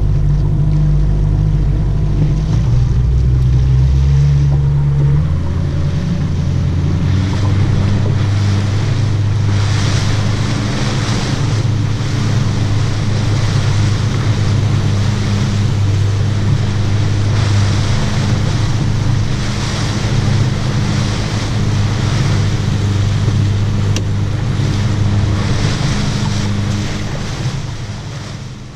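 A small fishing boat's motor running under way: a steady low engine hum over wind on the microphone and water rushing past the hull. The engine note changes about five seconds in, and the sound fades out near the end.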